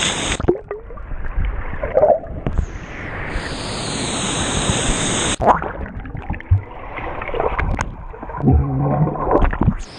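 Waterfall plunge-pool water heard by a camera dipping in and out of it: the waterfall's rushing hiss while above the surface, turning to muffled underwater gurgling and bubbling when it goes under, about half a second in and again after about five seconds, with a few sharp splashes.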